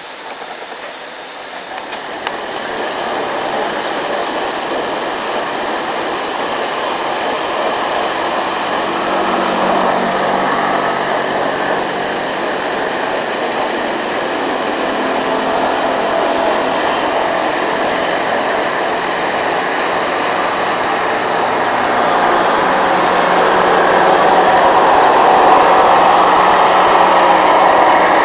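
Loud, steady roar of steam venting at a geothermal plant, swelling louder over the stretch, with a low steady hum underneath.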